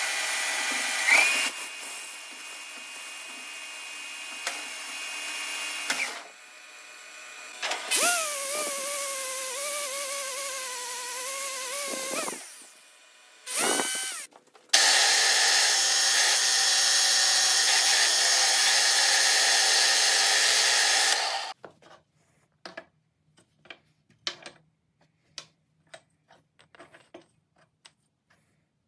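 Metal lathe cutting a spinning brass tube in several passes, at times with a whining tone that wavers in pitch. The cutting stops abruptly about 21 seconds in, and a few light clicks and taps of brass parts and a wooden handle being set on a wooden bench follow.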